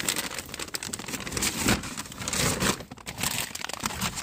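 A brown paper grocery bag and the packages inside it rustling and crinkling as a hand rummages through them, in quick irregular crackles.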